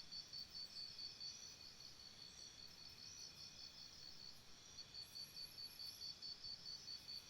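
Faint, high-pitched insect chirping, cricket-like, in an even pulsing rhythm of about four or five chirps a second. It weakens midway and comes back stronger near the end.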